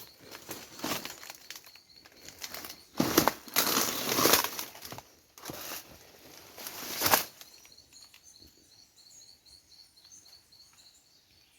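Irregular rustling and crunching of dry brush and leaves as hikers push through undergrowth, loudest in a few bursts during the first seven seconds. After that a faint, rapid, high-pitched chirping repeats evenly.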